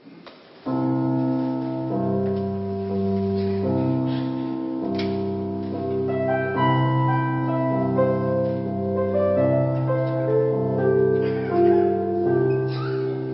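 Keyboard begins playing about a second in: slow, held chords changing every second or two.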